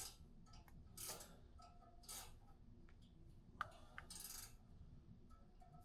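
Faint, scattered metallic clinks and ticks with a few short rustles, as exhaust hardware and hand tools are handled during the install.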